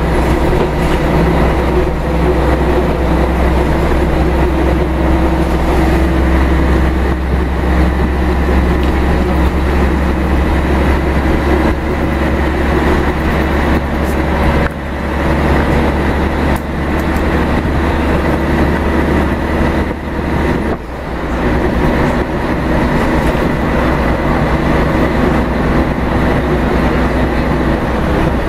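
Scania DSC1171 11-litre six-cylinder turbo diesel of a Scania L113CRL bus running under way, heard inside the passenger cabin: a steady low drone with road and body noise. The loudness dips briefly a few times past the middle.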